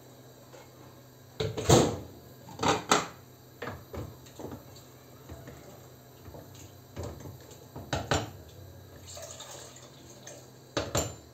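Spoon stirring and clanking against a stainless-steel cooking pot, about ten irregular metallic knocks, some in quick pairs.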